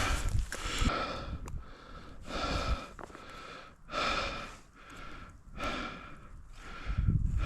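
A person breathing heavily, a breath about every second and a half.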